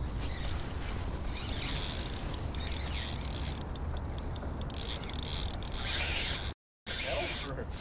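Spinning reel being cranked in spells, its gears whirring and clicking, with a short dropout to dead silence about two-thirds of the way through.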